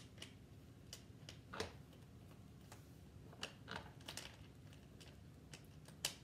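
Faint, irregular small clicks and taps from screws being tightened by hand to fasten the metal-and-wood leg base onto a plastic chair seat.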